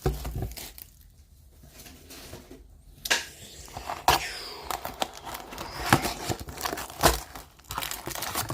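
A sealed box of trading cards being opened: plastic wrap crinkling and tearing, in irregular sharp crackles and rustles.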